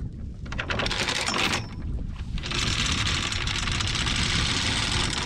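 Anchor chain rattling quickly as it pays out over the boat's bow while the anchor is carried up the bank, in two spells, the longer one starting about halfway in. A low steady rumble lies underneath.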